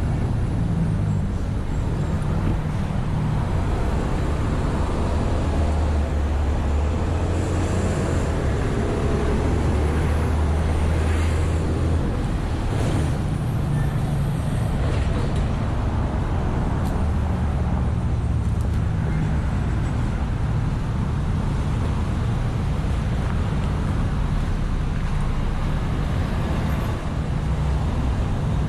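Wind buffeting the microphone, a heavy low rumble that swells and eases in gusts, over the steady noise of road traffic.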